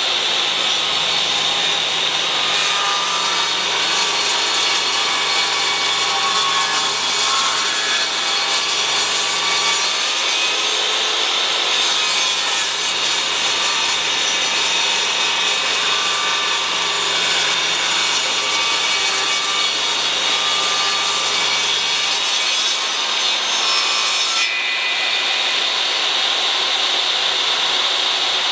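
DeWalt DW745S 10-inch jobsite table saw, its 15-amp motor running at full speed while the 24-tooth blade rips a 1x4 maple board lengthwise. The cutting noise is loud and steady, and its tone changes near the end as the board clears the blade.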